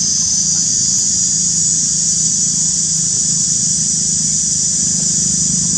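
Steady outdoor background drone: a continuous high-pitched buzz over a low hum, unchanging, with no distinct event.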